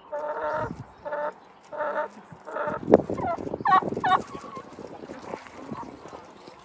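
Turkeys calling: several short, even-pitched calls, then a quick warbling gobble about three and a half seconds in.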